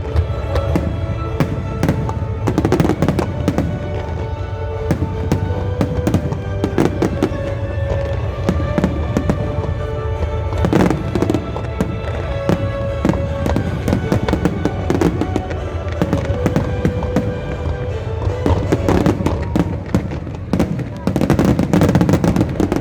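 Fireworks bursting one after another, with many sharp bangs and crackles, over music and the voices of a crowd.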